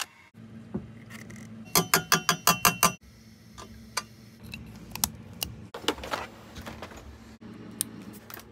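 Workshop handling noise of tools and parts during motorcycle dyno prep: a quick run of about eight sharp metallic clicks about two seconds in, then scattered clicks and rattles as cables and a fuel-injection module are handled, over a steady low hum.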